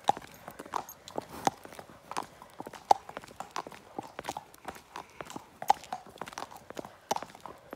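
Horses' hooves clip-clopping at a walk on an asphalt road, several sharp hoof strikes a second in an uneven rhythm from two horses being led in hand.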